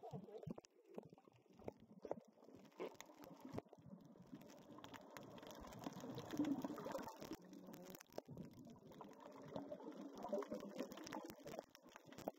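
Muffled underwater sound of water sloshing and bubbling around a submerged camera, with many scattered small clicks and pops.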